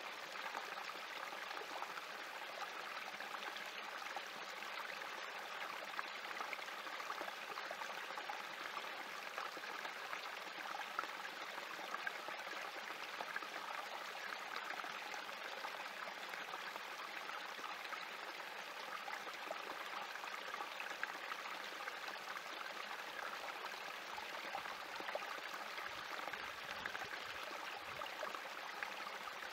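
Small spring creek trickling and splashing over rocks in a small cascade, a steady, even babble of running water.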